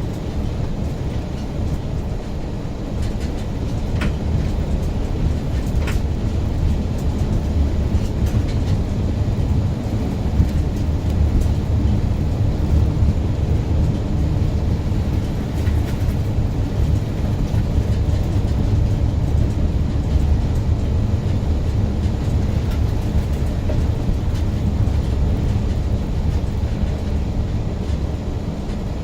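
Steady low rumble of a car driving on a road, with a couple of faint ticks early on.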